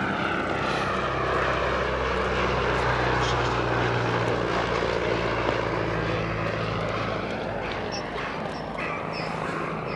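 The Cirrus Hermes II four-cylinder engine and propeller of a 1928 de Havilland DH60X Moth biplane running steadily in flight. The sound is loudest about four seconds in and fades after about seven seconds as the aircraft draws away.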